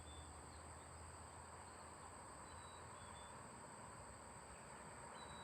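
Near silence: faint outdoor background with a steady high-pitched insect hum and a few faint short chirps.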